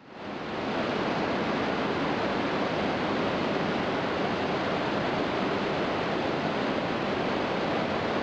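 Steady rushing roar of Iguazu Falls, an even wash of falling water that fades in over the first second.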